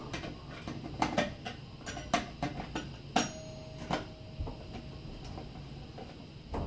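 Scattered small clicks and taps of a screwdriver and screw working at a wall-mounted doorbell chime box, as a screw is tightened into a wall anchor that is not holding. The taps are densest in the first few seconds and come roughly one every half second.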